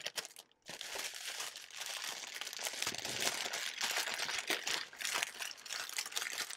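Thin clear plastic bags crinkling and crackling as small baggies of diamond-painting drills are handled and pushed back into a larger plastic bag, with a brief pause about half a second in.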